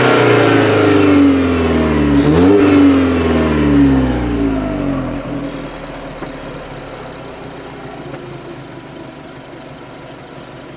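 Alfa Romeo Giulietta QV's 1750 turbocharged four-cylinder engine coming off a rev and falling in pitch, with a short throttle blip about two seconds in, then falling again and fading to a quiet, steady low sound by about five seconds in.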